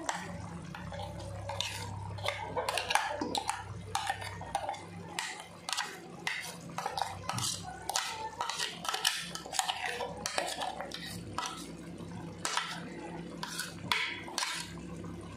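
A spoon clinking and scraping against a steel bowl as thick green masala paste is knocked out into a steel pan, in repeated short knocks and scrapes.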